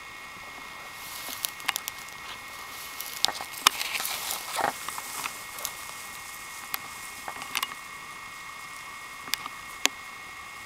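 African porcupine moving off through vegetation: a crackling rustle with scattered sharp clicks and snaps, busiest in the first half, then only a few isolated clicks. A steady high drone runs underneath.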